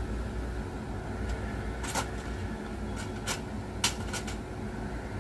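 A handful of light clicks and knocks, the sharpest just under four seconds in, over a steady low hum.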